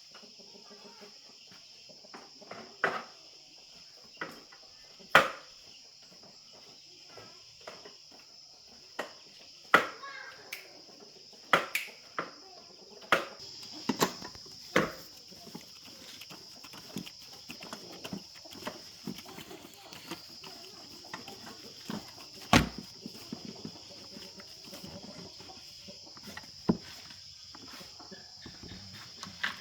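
Insects chirring steadily in a continuous high drone, with sharp knocks and clicks at irregular intervals, about fifteen in all.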